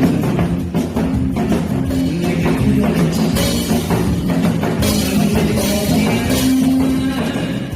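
Korean janggu hourglass drum beaten in a fast, steady rhythm along with a loud recorded trot song.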